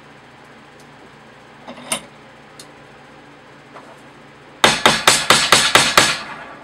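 A hammer beating a small piece of sheet metal clamped in a bench vise, folding it over: about eight quick metallic blows in a second and a half, starting about two-thirds of the way in, after a single light tap near the start.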